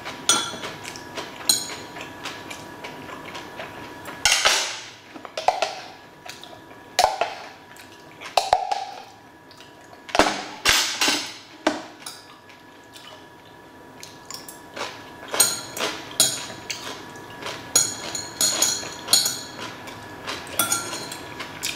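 Close-up eating sounds: a spoon and metal chopsticks clicking and clinking against steel trays and a mug, with chewing and sipping between the clinks.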